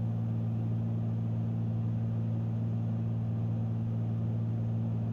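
Twin piston engines and propellers of a Cessna 310Q droning steadily in flight, a constant low hum with no change in pitch.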